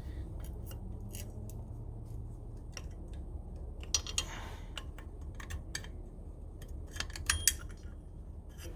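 Small metal parts being handled, a machined aluminium hub-centric ring against the wheel spacer and hub: scattered light clicks, with a few ringing clinks about four seconds in and again near the end, over a steady low hum.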